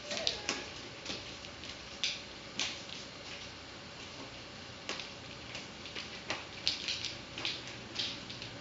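Nunchaku being twirled and caught, giving short, sharp swishes and light clicks at irregular intervals.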